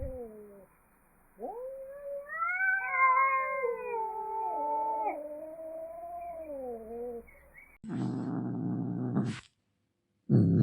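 Domestic cat caterwauling: a long, wavering, rising and falling yowl. It is followed by a low, rough rumble that stops abruptly, then starts again louder near the end after a short silence.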